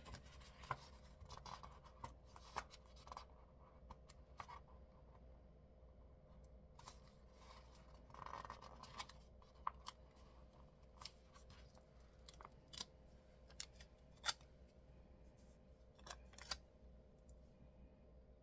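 Faint handling of sticker sheets on planner pages: scattered sharp clicks and short papery rustles as stickers are peeled and pressed down.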